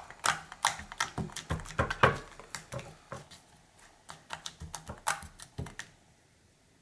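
Slime being squished and pressed, making irregular sharp clicking pops from suction. The clicks come a few a second, thin out and stop about six seconds in.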